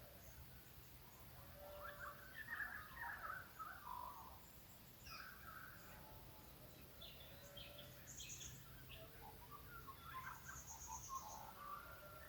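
Faint early-morning chorus of mixed wild birds in the Australian bush: scattered chirps, whistles and short calls from several birds, with quick high trills, busiest about two seconds in and again in the second half. A faint steady low hum lies underneath.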